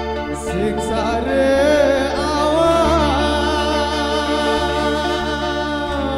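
Amplified street band playing: a man sings into a microphone over electric guitars, bass and hand drums. The voice comes in about half a second in with sliding, held notes.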